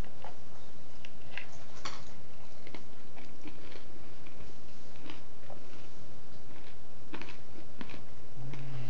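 A person eating close to the microphone: chewing and biting, with scattered short crunches and clicks, over a steady low hum.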